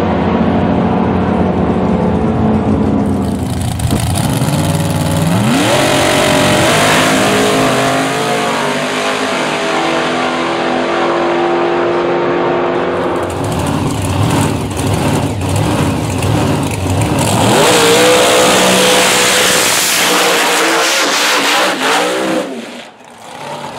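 Drag racing car engines at full throttle, the pitch climbing steeply as a car accelerates away and then holding. Later comes a rougher, louder stretch of engine crackle and popping, then another engine rises in pitch, with a short dip in loudness near the end.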